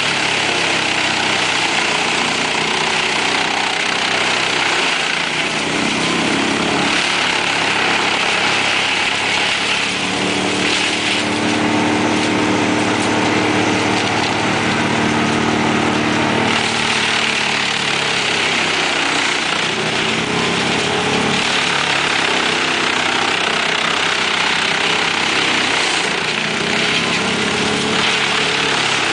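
Large mobile wood chipper running hard as a crane grapple feeds it bundles of branches, the engine and cutter drone mixed with a steady hiss of wood being chipped and blown out through the spout. The engine pitch wavers and recovers a few times as it takes the load.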